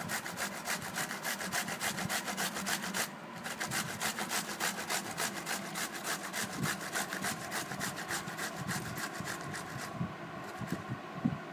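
Cucumber being grated by hand on a flat, round stainless-steel grater: quick, even rasping strokes, several a second, growing softer near the end.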